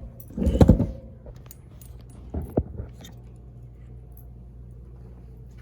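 A short clattering burst, then a few faint clicks and a sharp knock about two and a half seconds in, over a steady low hum.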